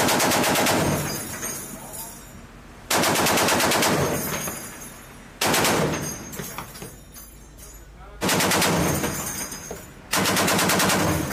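Browning M2HB .50-calibre heavy machine gun firing five short bursts of rapid shots, each under a second long, about two to three seconds apart, each burst leaving a fading echo.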